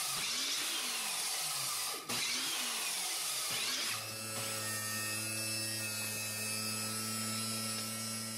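Table saw running as small wooden blocks are cut, with a brief break about two seconds in. About four seconds in it gives way to the steady hum of an electric quarter-sheet orbital sander running.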